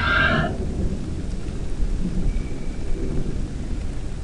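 Thunderstorm: low rolling thunder rumbling over steady rain. A pitched, wavering sound carried over from just before cuts off about half a second in.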